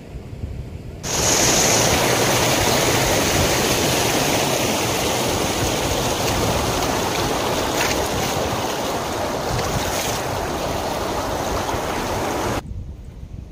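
Rushing river water, a loud steady hiss that starts abruptly about a second in and cuts off suddenly near the end. Low wind rumble on the microphone is heard before and after it.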